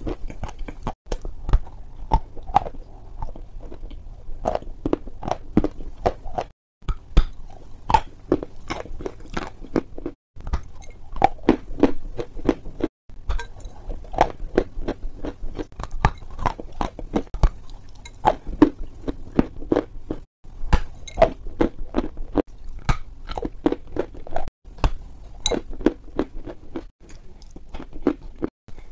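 Biting and chewing a crunchy white dessert, with sharp crackles several times a second. The sound cuts out to silence for a moment now and then.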